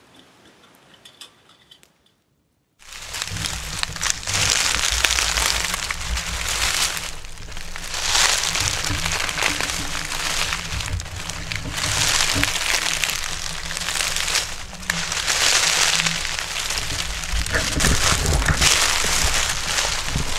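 Footsteps crunching through deep, dry fallen leaves, starting about three seconds in. Each slow walking step makes a loud swell of rustling and crackling, coming every second or two.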